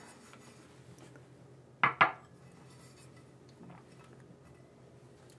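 A bowl being set down at a ceramic bathroom sink: a sharp double clink of dishware about two seconds in, with a brief ring, otherwise only faint room sound.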